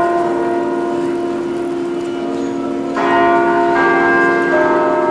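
Tower bells chiming: struck notes that ring on and overlap. A fresh group of three notes sounds in quick succession about three seconds in.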